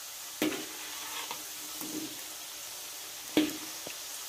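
Pastel pastries sizzling steadily in hot frying oil. A metal spatula knocks sharply against the pan twice, about half a second in and near the end, as the pastries are turned.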